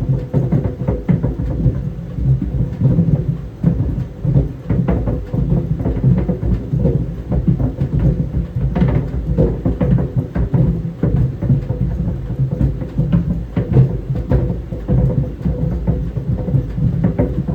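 Tennis balls tumbling in a running clothes dryer: continuous irregular knocking and thudding over a low rumble, with a faint steady hum.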